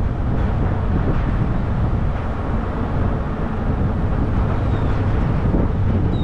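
Wind buffeting the microphone of a camera mounted on the hood of a moving vehicle, over a steady low rumble of tyres and engine.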